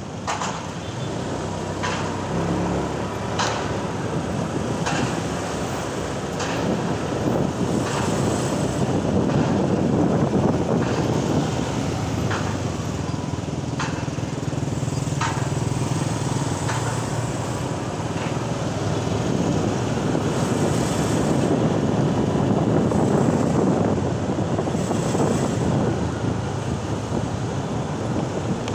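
Riding a motor scooter in dense city traffic: a steady blend of the scooter's engine, road and wind noise and surrounding cars, swelling and easing. Light ticks come about every second and a half during the first half.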